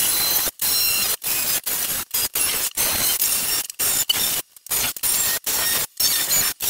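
DeWalt cordless oscillating multi-tool with a grout removal blade grinding old grout out of the joints between wall tiles. It is a harsh buzzing rasp with a high whine, coming in a string of short bursts with brief breaks between them.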